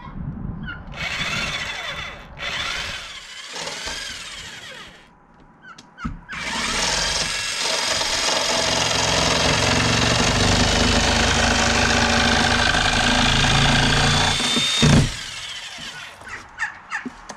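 Handheld power tool at work on the coop door: two short runs, then a long run of about eight seconds that ends with a sharp knock.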